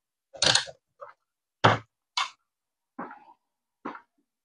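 About six short, irregular knocks and clacks of handling: an analog multimeter being set down on a plastic rice cooker lid, and its test leads and the cooker's power plug being picked up and knocked about.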